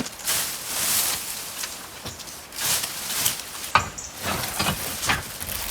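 Rustling and scraping in loose debris, with a few sharp knocks in the second half.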